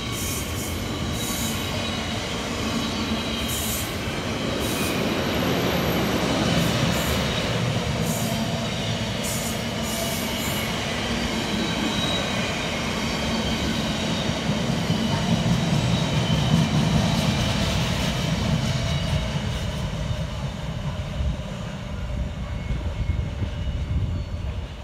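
Wagons of a container freight train rolling past on steel rails: a steady rumble of wheels with a thin, high wheel squeal and sharp clicks over the rail joints in the first half. It dies away near the end as the last wagons pass.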